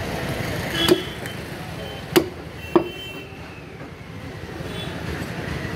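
Three sharp chops of a butcher's cleaver striking into a lamb head on a wooden chopping block, the last two close together, over steady street traffic noise.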